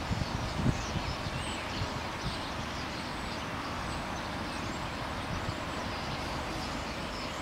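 Steady outdoor background noise of wind in the trees and distant road traffic, with a light gust of wind on the microphone just under a second in.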